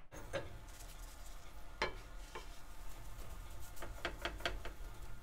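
Za'atar-topped flatbread dough set down on a hot stovetop griddle and pressed flat by hand: faint sizzling with scattered light taps and clicks, and a quick run of clicks near the end.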